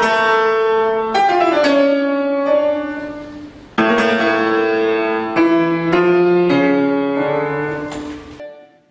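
Keyboard instrument playing a slow melody of held notes in two phrases, the second beginning about four seconds in; the sound stops shortly before the end.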